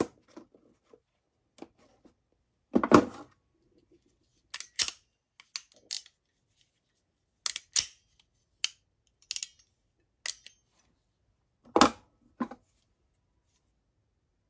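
A dull thump about three seconds in, then a string of sharp metallic clicks, singly and in close pairs, from hand ratcheting crimping pliers being squeezed and worked, their ratchet clicking through the crimp stroke.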